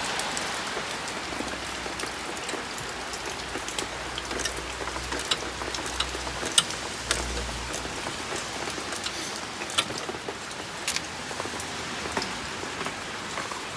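Steady rain falling, an even hiss with scattered sharp clicks, the loudest about six and a half seconds in and again near eleven seconds.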